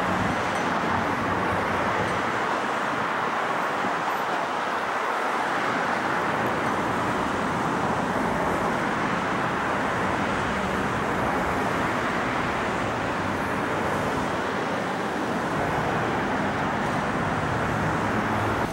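Steady, even noise with no distinct events, holding the same level throughout.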